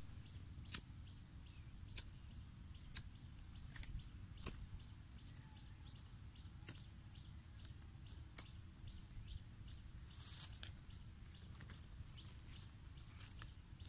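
A small bird chirping in a quick, even series of short high notes, which stops about two-thirds of the way through. Six sharp clicks come a second or two apart, and there is a brief rustle near the end.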